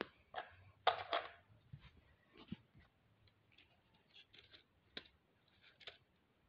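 Scattered light clicks and rustles of a small plastic remote-control toy car being handled by hand, with the loudest cluster about a second in.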